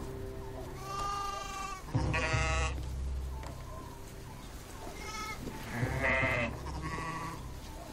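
Sheep bleating in a pen, about five calls one after another, the first two the longest, over a low steady rumble.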